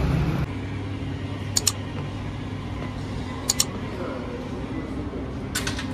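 Mouse-click sound effects from an animated like-and-subscribe button, a sharp double click about every two seconds, over a steady hum of room tone.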